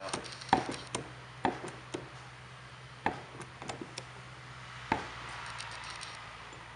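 Sharp, irregular metallic clicks and knocks as the spar rivet squeezer and aluminium spar are handled and repositioned, four louder knocks a second or two apart among lighter clicks, over a faint steady low hum.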